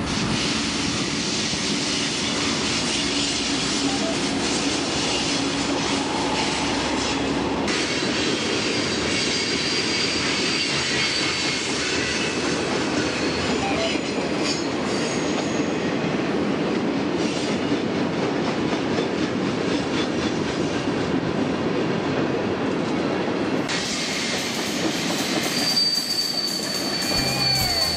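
Freight train passing close by: the GE ES44DC diesel locomotives' engine drone in the first few seconds, then a long string of freight cars rolling past with steady steel wheel-on-rail noise. A thin, high wheel squeal rises out of it for a few seconds mid-way and again near the end.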